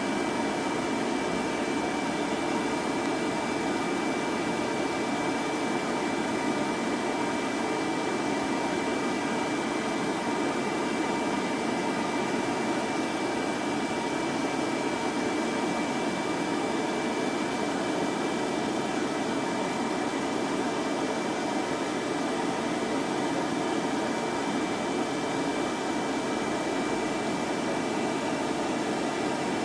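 Blow dryer running steadily while drying a toy poodle's coat: an even rush of air with a thin, steady high whine over it.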